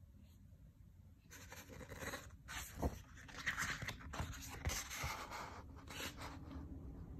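Pages of a graphic novel being turned by hand: paper rustling and sliding, starting about a second in, with a light knock about three seconds in.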